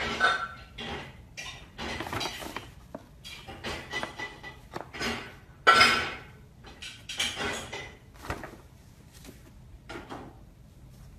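Brown paper shopping bag crinkling and rustling in irregular bursts as a hand presses it and a kitten moves about inside it, with the loudest crackle about six seconds in.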